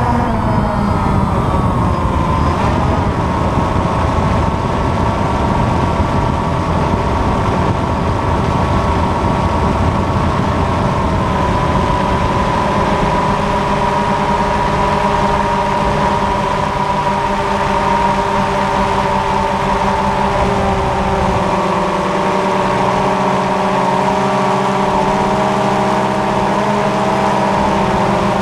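DJI Phantom FC40 quadcopter's four motors and propellers whining in flight, heard close up from the drone's own camera. Several tones drop in pitch in the first couple of seconds, hold steady, and shift again near the end as the throttle changes.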